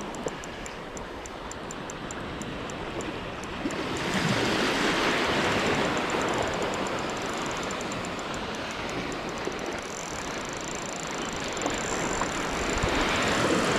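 Small sea waves washing in around the legs at the shoreline, the wash swelling about four seconds in and again near the end. Over it, a faint fast ticking from a spinning reel being wound in.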